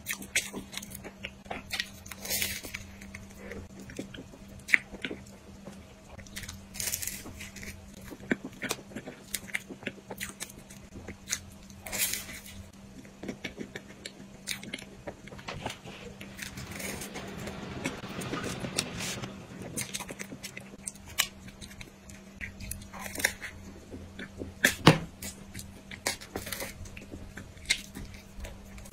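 A person chewing and biting into cream-filled puff pastry close to a clip-on microphone: wet mouth sounds with scattered sharp smacks and clicks, the loudest about 25 seconds in.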